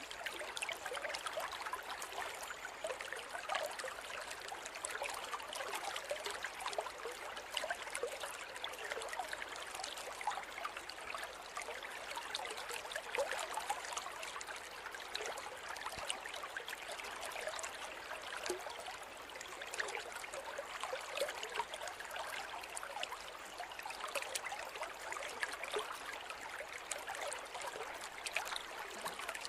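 Forest river flowing steadily, an even rush of water over stones with constant small splashes and trickles.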